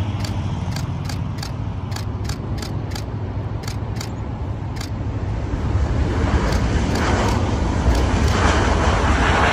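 Airbus A350-900 jet engines (Rolls-Royce Trent XWB) rumbling during landing and rollout. The rumble swells and grows broader about halfway through.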